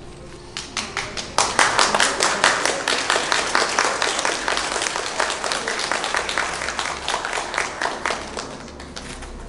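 Audience applauding: many people's hands clapping, starting about half a second in, rising quickly, and dying away near the end.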